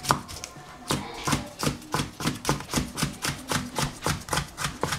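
Cleaver chopping a yellow bell pepper into thin strips on a plastic cutting board, the blade knocking the board in a steady rhythm of about three strokes a second.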